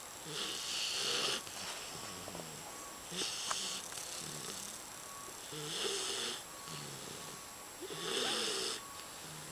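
4-month-old English Bulldog puppy snoring in its sleep: four snores, one about every two and a half seconds, each a breathy hiss with a low buzz.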